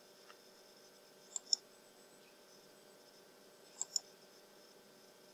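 Computer mouse clicking: two quick double clicks, one about a second and a half in and another about four seconds in, over a faint steady hum.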